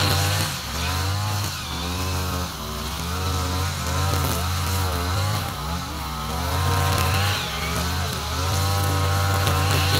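Backpack brush cutter with nylon trimmer line, its small engine running continuously and revving up and down over and over.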